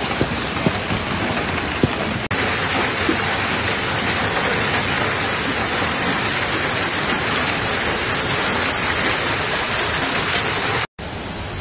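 Heavy downpour: a dense, steady hiss of rain pouring onto hard surfaces, with a few sharp knocks in the first two seconds. The sound changes abruptly about two seconds in and drops out for a moment near the end, where separate clips are joined.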